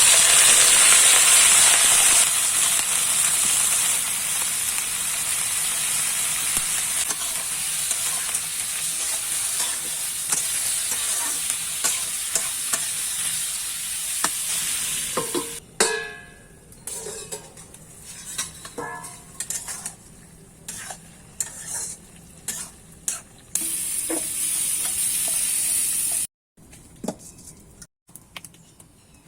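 Food sizzling in hot oil in a pan. It starts abruptly and loudly and settles into a steady sizzle. About halfway through it cuts to a quieter sizzle with scattered clicks, then loud sizzling returns for a few seconds before stopping suddenly.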